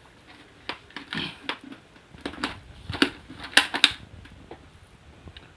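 Small electronic components, capacitors and resistors, clattering and clicking as a hand rummages through a jar of them to pick out a capacitor, with a few sharper clacks about three to four seconds in.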